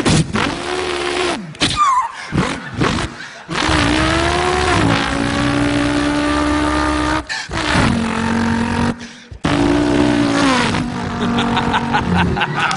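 A man imitating a car engine with his voice: rising and falling revs and held notes like gear changes, broken up by several short pauses.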